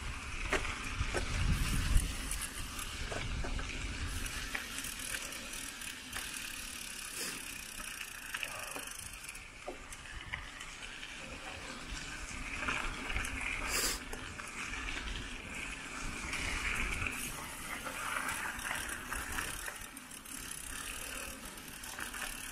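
Mountain bike being ridden: tyres rolling along the path with small rattles and clicks from the chain and frame. Wind buffets the microphone, giving a low rumble that is strongest in the first two or three seconds.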